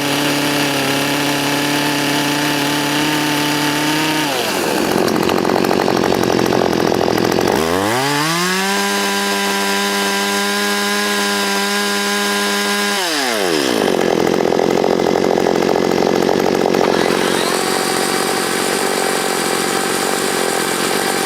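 Chainsaws run in turn for a noise comparison. Twice a saw spins up with a rising whine, holds a steady pitch for several seconds and winds down; between and after, a rougher steady chainsaw running sound.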